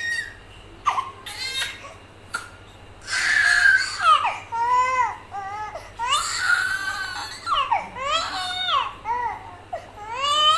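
A young child crying in repeated high-pitched wails, each rising and falling in pitch, with short breaths between them.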